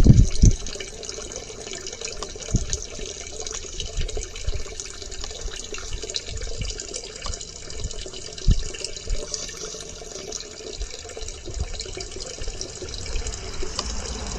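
Flush water from a toilet drain line running and trickling steadily into a sewage wet well, with no solids coming through. A few short low thumps stand out, the loudest near the start and about eight seconds in.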